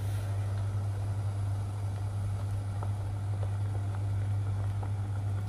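A steady low electrical hum with a soft hiss beneath it and a few faint light ticks.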